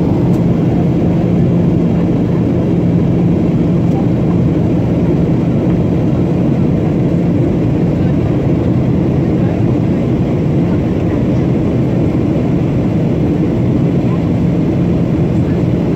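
Airliner cabin noise at a passenger window on the approach: the steady low rumble of the jet engines and airflow, with a constant hum.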